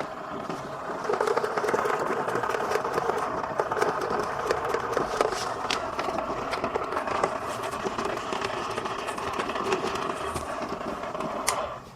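Dophin C1000 aquarium canister filter being primed, drawing water and air through its hoses: a steady mechanical running sound with many small crackles and clicks that cuts off abruptly near the end. Air still in the system is the sign that it has not yet fully primed.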